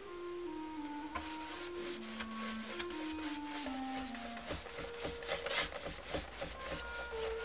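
A hand rubbing brown stain into the surface of a woodcut's wooden block in quick, irregular strokes. A soft melody of held notes plays underneath.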